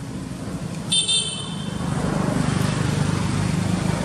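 A motor vehicle engine runs steadily and grows louder about halfway through. About a second in there is a brief high-pitched toot.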